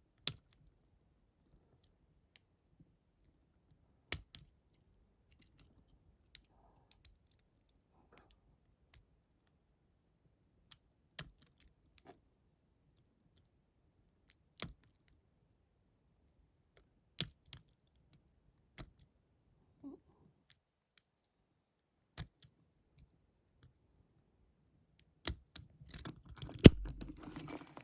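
Lock pick and tension wrench working the pins of a Viro 50mm padlock: sparse, sharp metallic clicks a second or more apart. Near the end comes a flurry of metal rattling and one loud click as the padlock opens.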